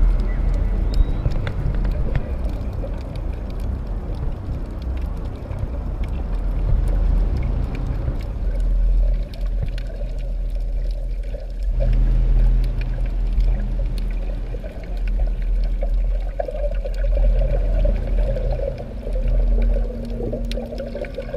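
Ambient tribal background music: a low, steady drone with a watery, bubbling wash over it.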